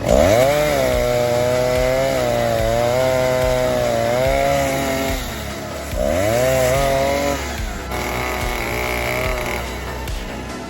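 Vintage Stihl 08S two-stroke chainsaw revved up twice: it climbs sharply to high revs at the start, holds there for about five seconds and drops back, then revs up again about six seconds in and settles to a lower speed near the end. The saw has just been got running again after tinkering.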